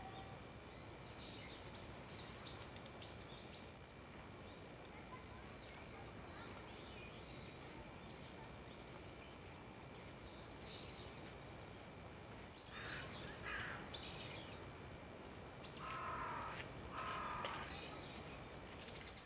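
Wild birds calling outdoors over a steady background hiss. There are scattered short, thin, high calls at first, then a few louder calls about two thirds of the way in and two more near the end.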